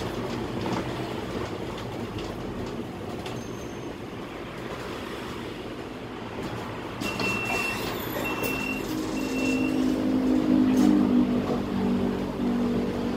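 Scania K320 articulated bus running along, heard from the driver's cab as a steady engine and road rumble. About seven seconds in come three short high beeps about a second apart, then the engine note comes up and grows louder.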